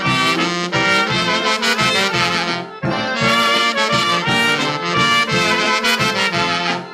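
Instrumental passage of a 1950s polka band's waltz, played from a restored 78 rpm record, with a short break in the phrase about three seconds in.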